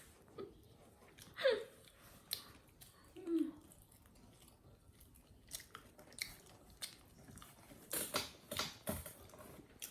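Close-up chewing and crunching of food, with scattered sharp clicks and crunches that come thicker from about 5 s on. A short falling squeak comes about a second and a half in, and a brief low vocal sound a little over three seconds in.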